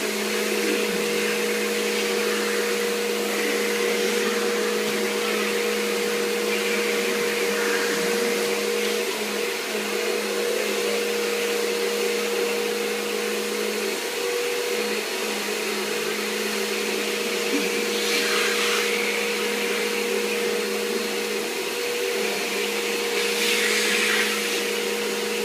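Vacuum cleaner running steadily, its motor holding a constant hum over a rushing hiss of air. There are brief louder hissy surges about two-thirds of the way through and again near the end.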